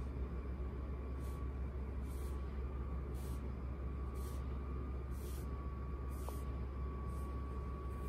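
Hands pressing and rubbing a cloth towel over a person's back during a massage, giving soft brushing swishes about once a second over a steady low hum and a faint steady whine.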